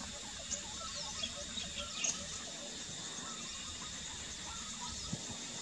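Wetland ambience: scattered short bird chirps and calls over a steady high hiss and a low background rumble.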